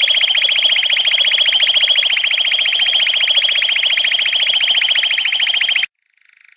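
A bird's rapid, even trill: a long, fast run of identical high notes that cuts off abruptly near the end.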